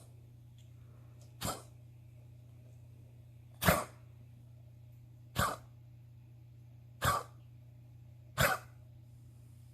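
Repeated coughing: five short, harsh coughs about every one and a half to two seconds, several of them coming as a quick double cough.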